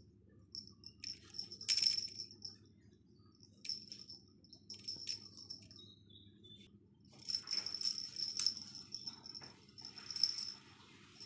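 A cat wand toy jingling in spells with a high ringing note as it is waved, dragged over carpet and batted by kittens. Scuffs, rustles and a few sharp clicks come with it. The longest and busiest spell is in the second half.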